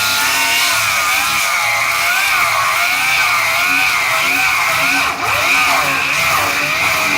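Circular saw (Skilsaw) cutting through a tire, its motor running with a steady whine while lower tones waver up and down in pitch as the blade loads in the rubber. The sound dips briefly about five seconds in.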